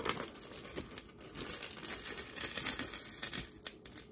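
Plastic bag crinkling irregularly as jewelry pieces are handled and taken out of the bag.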